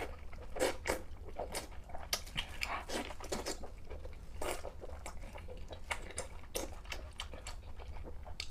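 Close-miked chewing and crunching of sweet and spicy pork with green vegetables: many short, irregular crunches over a steady low hum.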